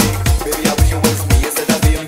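Dance-music remix with a fast, steady beat: deep kick drums and bass under bright hi-hat strokes.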